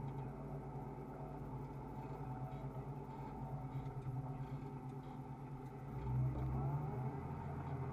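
New Holland T6080 tractor's six-cylinder diesel engine running steadily, heard from inside the cab. It grows louder for a moment about six seconds in.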